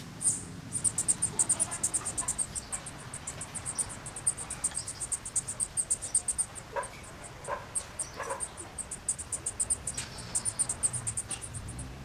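Cricket chirping in fast, even, high-pitched pulses without a break, with a few faint short sounds about seven and eight seconds in.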